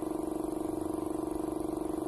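A motor running steadily: a constant low pitched hum that pulses fast and evenly.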